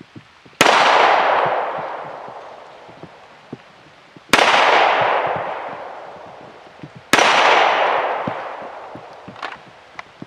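Three pistol shots fired slowly, a few seconds apart, each trailing a long echo that fades over two to three seconds. A few light clicks follow near the end.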